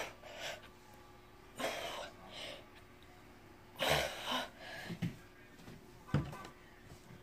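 A boy huffing and breathing hard with effort while curling a barbell: a handful of short, forceful puffs of breath a second or so apart, the strongest about four seconds in.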